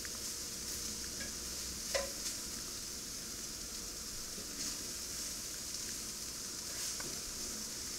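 Pieces of alligator meat sizzling steadily as they brown in olive oil in a skillet, with metal tongs clicking against the pan about two seconds in and again near the end.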